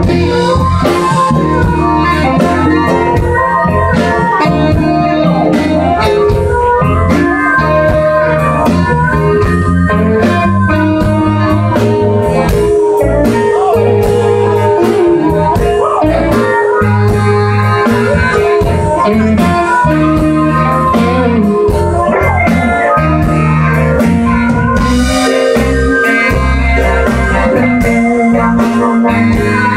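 Live blues band playing an instrumental passage: electric guitars, bass and drum kit, with a harmonica played into a hand-held microphone.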